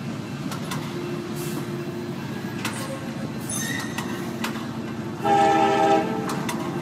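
Diesel freight locomotive's horn sounds one blast, a chord of several tones about a second long, a little past five seconds in, over a steady low rumble from the approaching train.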